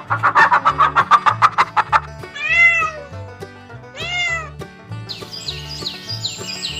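Domestic cat meowing twice, two drawn-out calls that rise and fall, over background music with a steady beat. A rapid pulsing animal call comes before the meows, and quick high chirps follow near the end.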